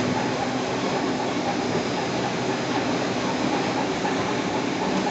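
Brick making machine running steadily: a continuous, dense mechanical noise with a few faint steady hums in it.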